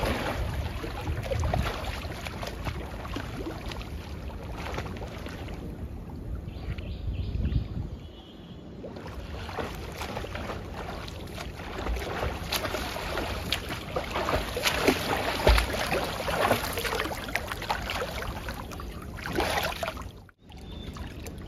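Water splashing from a swimmer's front-crawl arm strokes and kicks: a continuous wash with many short splashes.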